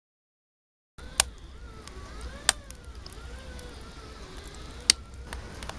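Wood fire burning in a brick bread oven: a low rumble with three sharp crackling pops, and a faint wavering tone underneath.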